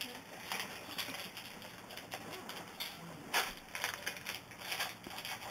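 Trading cards and their pack being handled: irregular soft clicks, rustles and scrapes as cards are flipped and slid, with a louder scrape about three and a half seconds in.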